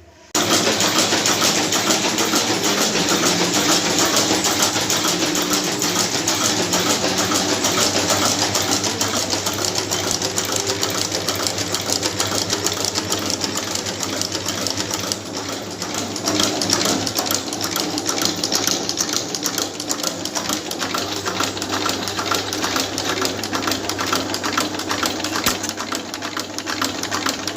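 Jewellery chain-making machines running in a workshop: a fast, steady mechanical clatter of many rapid ticks over a low hum.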